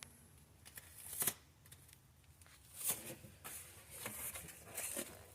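Several short bursts of rustling and tearing as pieces of adhesive-backed padding are handled and pressed into place.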